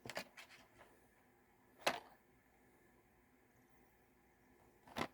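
Quiet room tone with one sharp click about two seconds in, and a few faint ticks at the very start.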